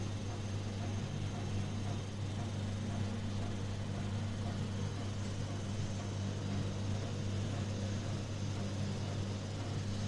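Steady low hum with an even background hiss, unchanging throughout; nothing else happens.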